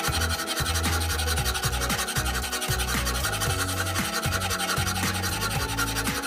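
Flat metal file rasping over a steel hatchet head in a vise, in repeated back-and-forth strokes, with background music underneath.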